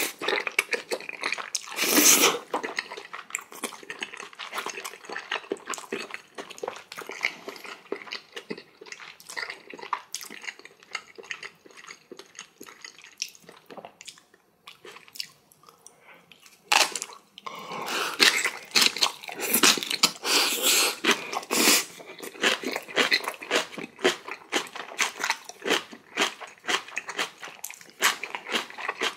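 Close-miked eating sounds: a person chewing and crunching spicy kimchi with mouthfuls of jajangmyeon noodles, in a dense run of wet smacks and crunches. There are louder stretches about two seconds in and again from about seventeen to twenty-two seconds.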